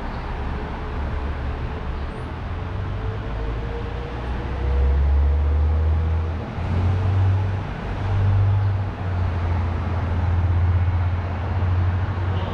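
Road-traffic ambience with buses running nearby: a steady hiss over a deep rumble that swells and fades several times in the second half, and a faint hum for a few seconds near the middle.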